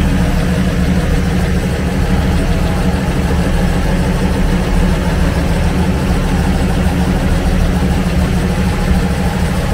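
1969 Chevrolet Camaro SS's L78 396 big-block V8 idling steadily, sounding smooth.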